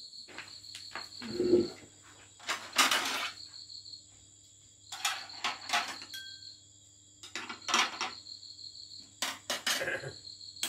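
Dishes and utensils clattering in about six short bursts, with a cricket chirping in fast, even pulses.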